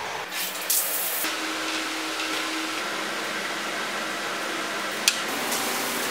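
A steady hiss of background noise, with a few light clicks near the start and one sharp clink of a metal spoon against the cereal bowl about five seconds in.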